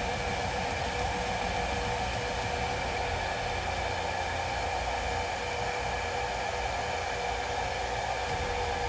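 Huanyang VFD-driven air-cooled CNC router spindle running steadily at about 12,000 RPM, with the drive near 200 Hz while its speed is calibrated. It makes an even whirring hiss with several steady whining tones.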